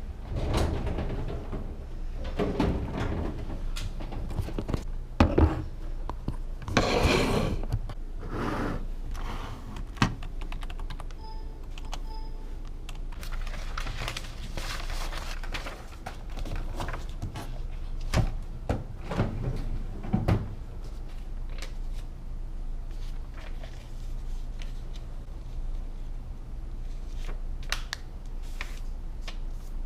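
Assorted small knocks, clicks and rustling, like objects being handled in a small room, with a couple of short beeps about 11 seconds in.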